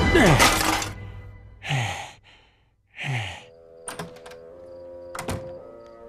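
Cartoon fight soundtrack: a loud crash dies away in the first second, and two short bursts of noise with a falling low tone follow. About halfway in, quiet music with held notes starts, with a sharp click partway through and another a little later.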